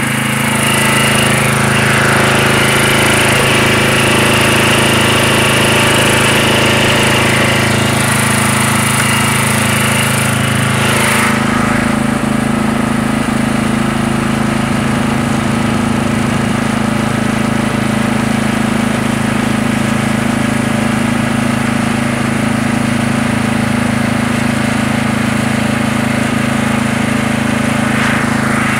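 Murray lawn mower's engine running steadily while bagging leaves. About eleven seconds in the sound shifts, as a higher hiss drops away.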